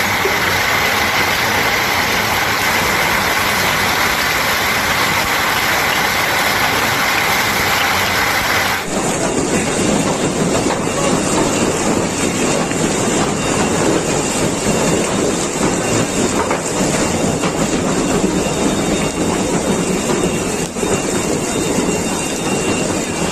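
Heavy hail pelting down, a loud dense continuous clatter. About nine seconds in it cuts abruptly to a deeper, rougher din of the hailstorm heard from inside a supermarket.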